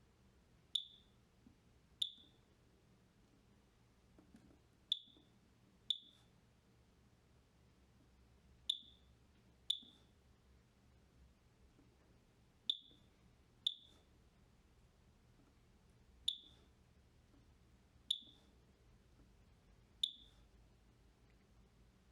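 Short, high-pitched electronic beeps from the Macurco DVP-120 control panel as its buttons are pressed to step through and adjust sensor alarm and warning setpoints. Eleven sharp chirps, unevenly spaced about one to two seconds apart and often in pairs.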